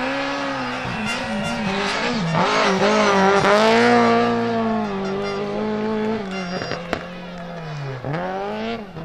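Lada saloon rally car's engine revving hard through a bend, its pitch dipping with quick throttle lifts in the first couple of seconds, then climbing and holding high under full acceleration. Near the end the revs fall away and drop sharply once more at a gear change before rising again.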